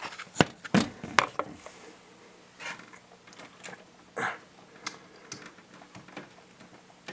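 A few sharp clicks and knocks in the first second or so, then scattered quieter taps and rustles: parts and wiring being handled while a pinball machine's power supply board is reconnected.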